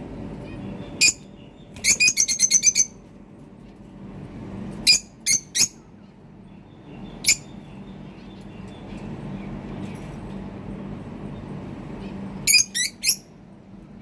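Cockatiel giving short, high-pitched chirping calls: one about a second in, a quick run of about eight near two seconds, then scattered groups of one to three, the last three near the end.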